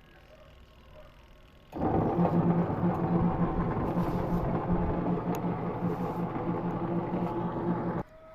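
Twin-tub washing machine's wash motor and gearbox starting up about two seconds in and running loudly with a steady hum over a rough grinding noise, then cutting off suddenly near the end. The noise is taken as a worn gearbox that needs replacing.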